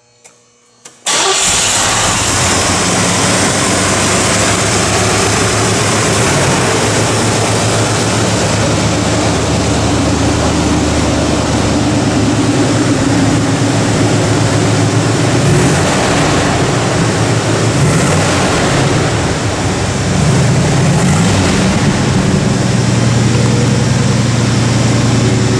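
1986 Oldsmobile Cutlass 442's 307 cubic-inch V8 starting about a second in and settling into a steady run. It is revved up and down a few times in the second half.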